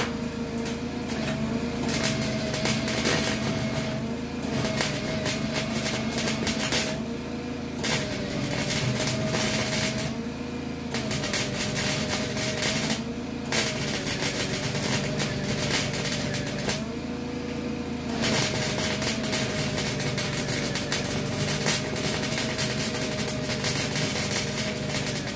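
Small 120-volt welder's arc crackling in spurts of a few seconds with short pauses between, as it tacks onto rusty steel of a school bus floor with the heat turned up to about 4. A steady hum runs underneath.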